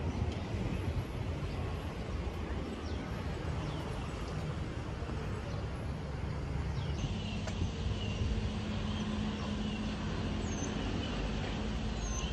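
Steady outdoor background of distant road traffic, a low rumble. About seven seconds in it changes abruptly to a different steady hum, and a few faint high chirps come through later.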